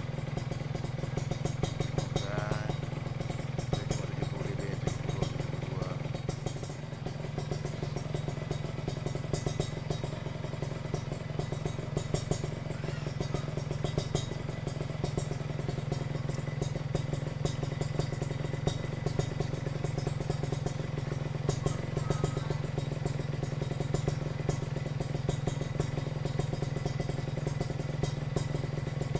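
Kawasaki Ninja RR's two-stroke single-cylinder engine idling steadily through an aftermarket racing exhaust, a fast, even run of exhaust pulses.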